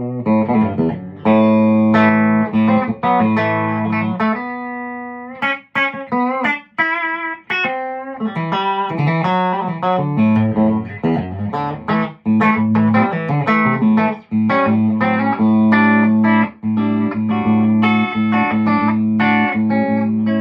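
Tom Anderson Classic electric guitar played on its bridge pickup alone, a hum-cancelling SC stacked single-coil, with the VA booster off: chords and single-note lines, thinning to single notes with short breaks around six to eight seconds in.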